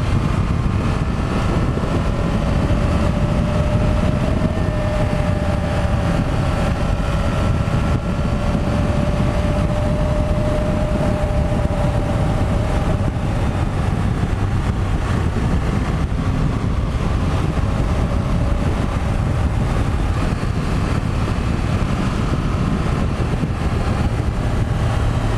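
Triumph Tiger 1200 motorcycle's three-cylinder engine running steadily, with a dense rushing noise of wind and road under it. A faint whine drifts slightly up and back down in the first half.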